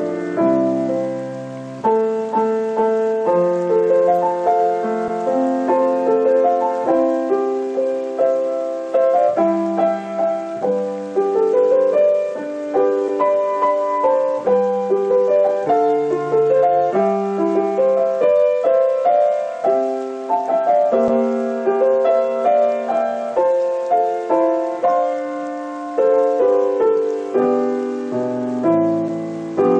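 Piano music: a slow piece of struck notes and chords, each dying away before the next.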